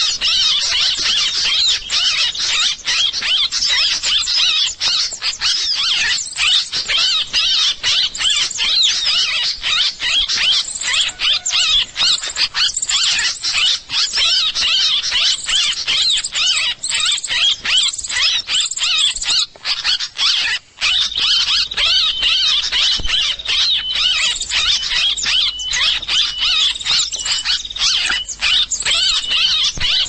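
Bird-luring recording (suara pikat): a dense, unbroken crowd of rapid high-pitched chirps and twitters from many small birds, played to draw wild birds to a trap.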